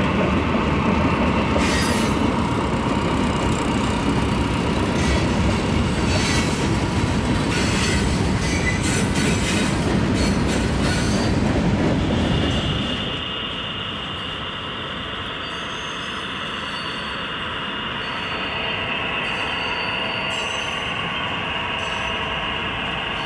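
HO-scale model freight train running on the layout's track: a steady rumble with the clicking of wheels over rail joints. About thirteen seconds in it drops to a quieter sound with a steady high whine.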